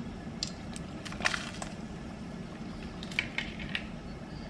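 Light clicks and clatter of crabs being handled and put into a pot of boiling water, in two short clusters, over a steady low hum.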